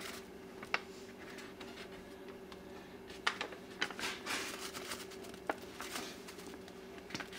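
Browned ground beef in a skillet crackling faintly, with scattered soft pops and ticks over a steady low hum.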